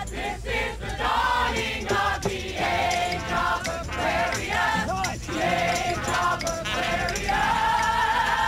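A crowd of voices singing a song together, with a long held note near the end.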